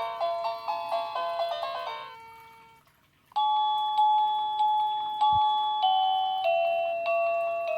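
Wireless plug-in doorbell receiver playing its built-in chime tunes. A quick electronic melody fades out about two seconds in. After a short pause a new tune begins, with slower single notes about one every half second, stepping downward.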